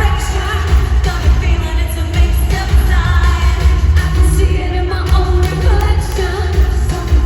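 Live pop song played loudly through a concert PA, with women singing over a heavy, steady bass beat, recorded from the audience in a large arena.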